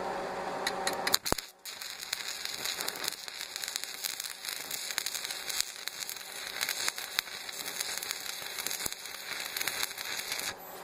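Stick (arc) welding on steel: the arc strikes about a second and a half in, then crackles and sizzles steadily while a full weld bead is run, stopping just before the end.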